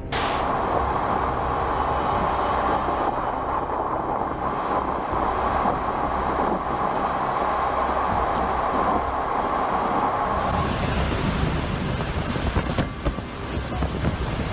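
Hurricane-force wind with driving rain, a loud, steady rush. About two-thirds of the way through it turns to a harsher, hissier rush that swells in gusts.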